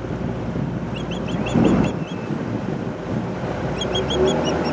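An osprey calling: a quick run of about six short, high chirps about a second in, and a few more near the end. Under it the boat's motor runs steadily, with wind on the microphone.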